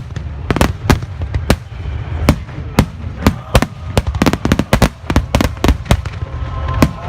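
Starmine fireworks barrage: a rapid, irregular run of sharp shell bursts, about three a second, over a continuous low rumble.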